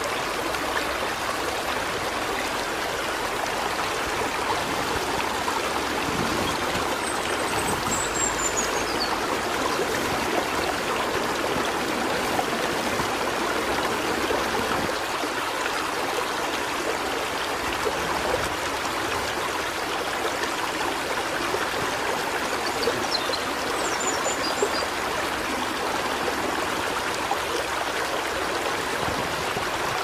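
Shallow stream running over rocks, a steady rushing babble of water. Two faint high chirps sound briefly over it, once early and once past the middle.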